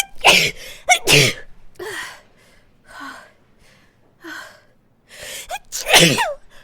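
A woman sneezing: two sneezes in the first second and a half, then a few hitching, gasping breaths building up to another sneeze near the end.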